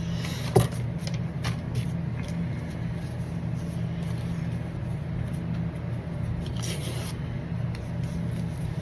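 Paper mailer envelope being handled and torn open: a sharp click, a few crackles, and a brief tearing rasp about seven seconds in, over a steady low hum.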